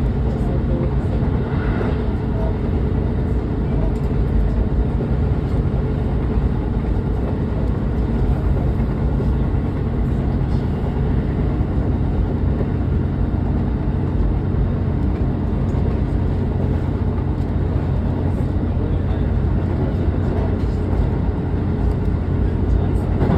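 A train running steadily, heard from inside its front cab: a continuous low drone with rumble from the wheels on the rails.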